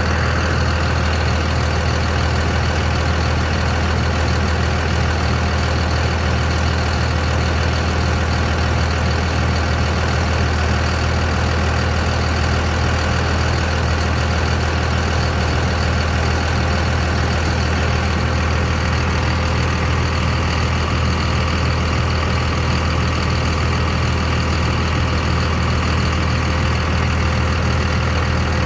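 2001 Dodge Ram's 5.9 L Cummins turbo-diesel idling steadily.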